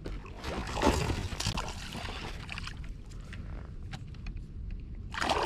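Water splashing and sloshing beside a kayak as a hooked bass is brought in, loudest about a second in, with another short splash near the end.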